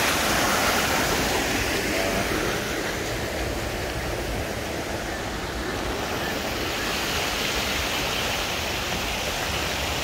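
Mountain stream water rushing down a smooth granite rock chute into a pool, a steady rushing that eases a little after about three seconds.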